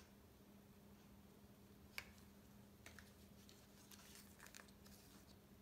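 Near silence: faint room hum, with one sharp click about two seconds in and a few faint clicks and rustles near the end as small plastic paint cups are handled.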